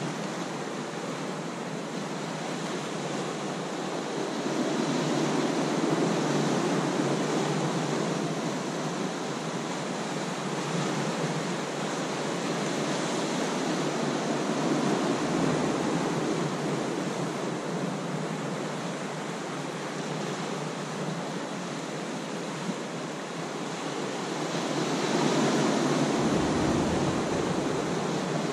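Ocean surf washing over shoreline rocks, a steady rush that swells louder three times as waves come in.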